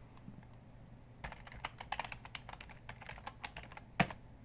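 Typing on a computer keyboard: a quick run of keystrokes entering a web address, ending in one harder keystroke about four seconds in.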